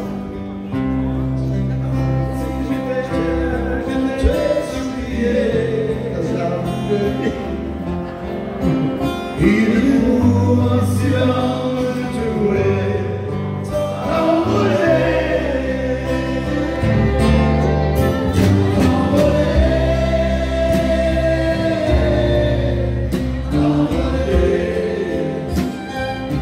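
Live country music: a man singing into a microphone, backed by a band with guitar and steady low bass notes.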